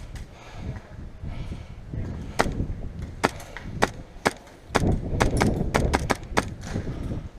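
Airsoft gun firing: four single shots about half a second apart, then a quicker string of about seven shots. A low rumble lies under the later shots.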